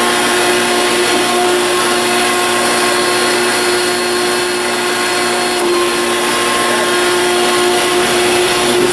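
Table-mounted router running steadily at speed: a continuous motor whine with the rush of the spinning bit, while a workpiece in a fixture is guided around the bit.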